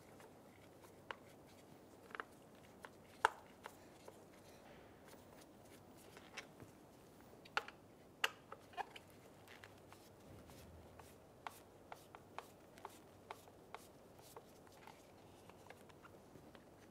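Faint, irregular clicks and light scrapes of a Phillips screwdriver working two screws out of the plastic cover of an HVAC blower motor housing.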